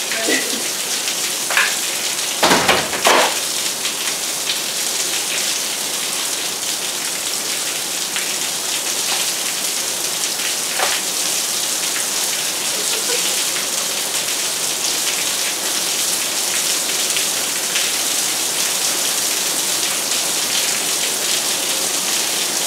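Heavy rain pouring down, with rainwater spilling in a steady stream over clogged gutters. A short cluster of louder impacts comes about two and a half to three seconds in.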